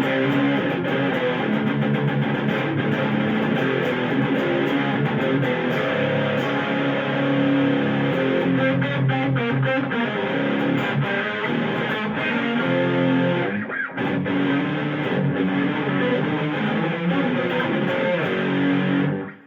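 Schecter Demon-6 electric guitar with active pickups played through an Electro-Harmonix OD Glove overdrive pedal, reverb and amp, giving a high-gain distorted tone with no boost. It plays continuously, with a brief dip about two-thirds of the way through, and stops suddenly near the end.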